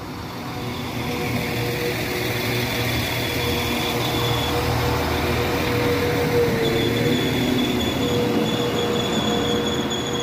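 Northern Class 195 Civity diesel multiple unit running slowly into the platform as it arrives to stop, a steady rumble with a thin high-pitched squeal and a lower hum held over it.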